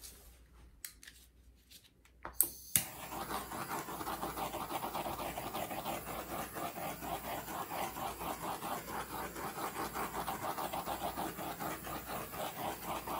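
Rapid back-and-forth rubbing by a gloved hand, about four strokes a second, starting about three seconds in after a few light clicks.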